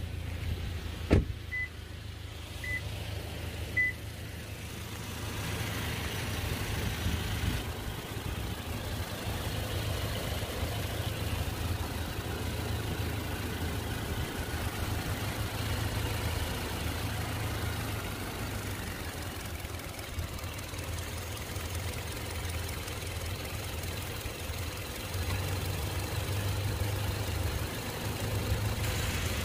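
Toyota Land Cruiser Prado's 2.7-litre four-cylinder petrol engine idling steadily, heard with the hood open. Near the start there is a sharp knock and then three short beeps about a second apart.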